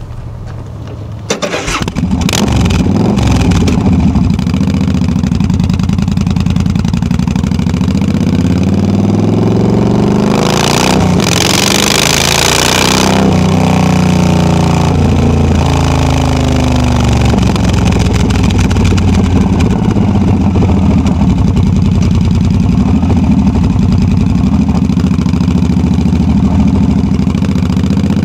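Yamaha V Star 1300 V-twin with loud drag pipes: the engine fires up about a second in, then pulls away, rising in pitch through the gears. A burst of wind hiss at speed follows, then the engine note falls as the rider eases off and settles into a steady low-speed run.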